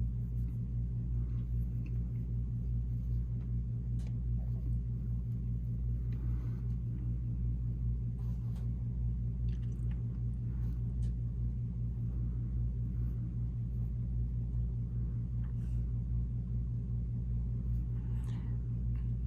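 A steady, low mechanical rumble with a few faint scattered clicks.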